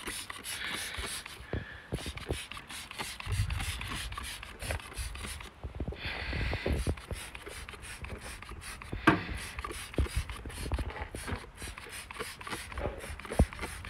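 A hand trigger spray bottle squeezed again and again, each pull giving a short hiss of spray and a click of the trigger, with a few sharper clicks late on.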